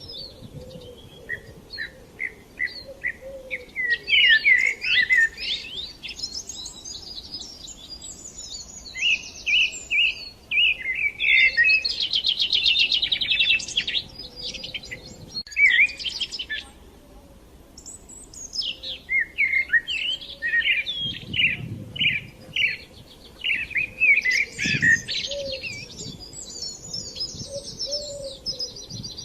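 Songbirds chirping and singing: quick repeated chirps and fast trills in bouts, with brief lulls between them.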